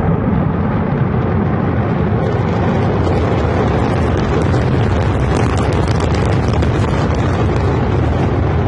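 Continuous low rumble with crackle from the Antares rocket's failed launch and fireball explosion.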